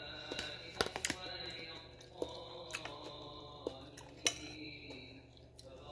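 Close-up chewing and mouth sounds of a person eating, with a metal spoon clicking and scraping against the plate and dish several times, the sharpest click about four seconds in.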